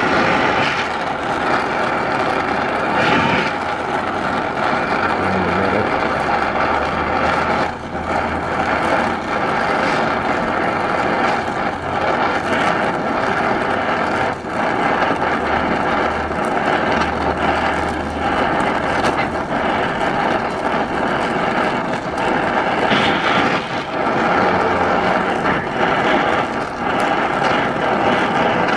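Oxy-fuel brazing torch hissing steadily as brass rod is melted onto a steam engine piston to build up low spots.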